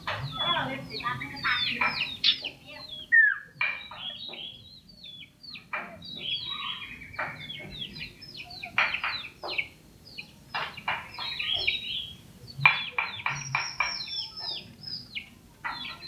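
Common iora (cipoh) singing in full voice: a rapid, chattering run of short, sharp down-slurred notes, broken by a few brief pauses.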